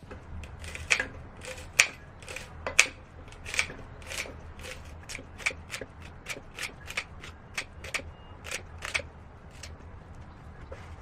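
A string of short, sharp clicks or knocks, about one to two a second and uneven in strength, over a low steady hum.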